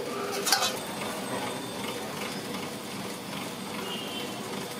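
Street-food stall cooking sounds: a steady hiss with one sharp metallic clink of a utensil about half a second in.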